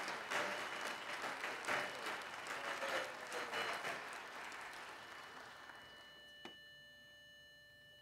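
Auditorium audience applauding, the clapping thinning and dying away over about five seconds. A single click follows, then quiet with a faint steady tone.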